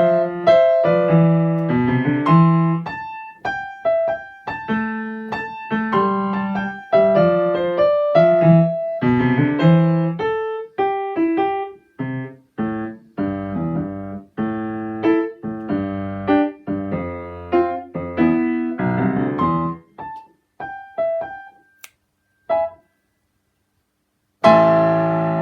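Piano playing a blues in A minor, a repeating bass pattern under a right-hand melody. The phrases thin out to scattered notes, there is a short silence, and then a long chord is struck and held near the end.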